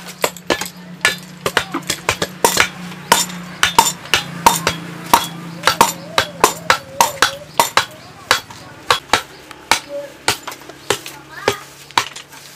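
A metal tool pounding compost into a steel block mould, with sharp clinking knocks at about three a second.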